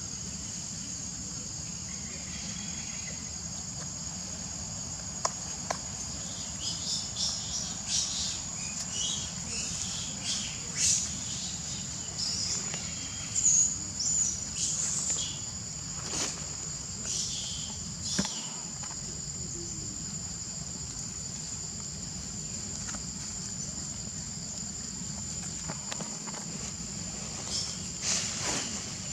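Insects, crickets or cicadas, keep up a steady high-pitched drone. Through the middle and again near the end there is a run of short, sharp, scratchy sounds.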